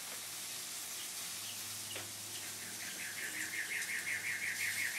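A small bird singing a fast trill of repeated identical chirps, about six or seven a second, starting about three seconds in, over a steady background hiss.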